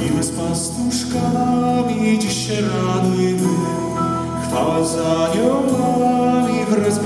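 Live band of acoustic guitars, electric guitar and keyboard playing a song, with men singing over the strummed guitars.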